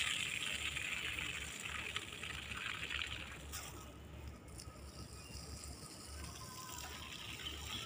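Water spraying from a garden hose onto furrowed soil: a steady hiss that drops away sharply about three and a half seconds in.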